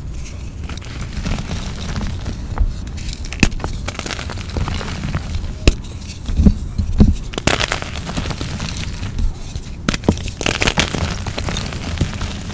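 Gym chalk blocks squeezed, crumbled and snapped apart by hand in a bowl of baby powder and cornstarch: steady crunching and crumbling, with sharper snaps about six to seven seconds in and again near ten seconds.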